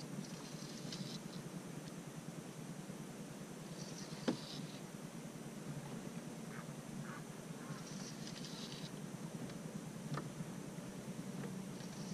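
Fishing reel being cranked while fighting a catfish: short rasping bursts about every four seconds as line is gained, with a sharp knock about four seconds in and a lighter one near the end.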